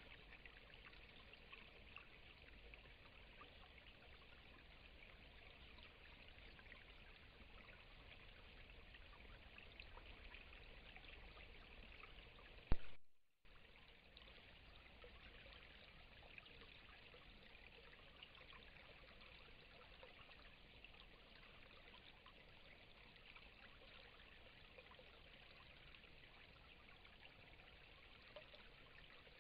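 Faint, steady hiss of background noise, broken about thirteen seconds in by a single sharp click and a moment of dead silence.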